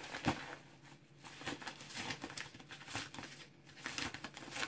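Padded bubble-wrap mailer crinkling and crackling in the hands as it is opened and rummaged through, with one light bump near the start.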